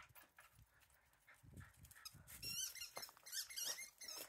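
Dog chewing a squeaky toy: a quick run of high squeaks, several a second, starting about halfway in.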